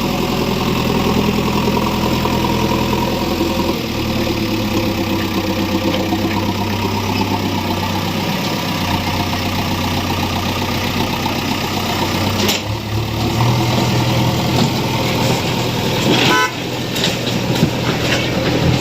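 JCB 3DX backhoe loader's diesel engine running steadily. There is a sharp knock about two-thirds of the way through, and a short high toot near the end.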